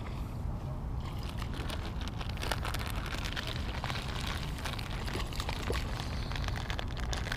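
Wind buffeting an outdoor camera microphone, a steady uneven rumble, with scattered faint crackles and ticks over it.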